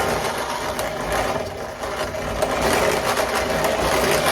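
Hand-cranked grinding mill being turned, grinding boiled split peas (dhal) with a steady, rapid metallic rattle. The first handful goes through to grind the black residue out of the new mill.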